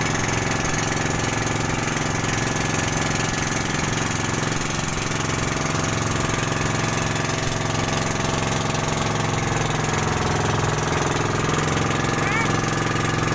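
Outrigger boat's engine running steadily under way, heard from on board, with an even, unchanging drone.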